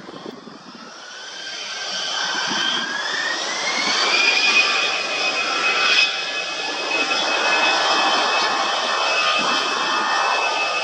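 Airbus A319's twin jet engines spooling up to takeoff power. A whine rises in pitch over the first few seconds and then holds steady as the engine noise grows loud.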